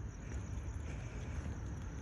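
Steady, faint outdoor background rumble without distinct events.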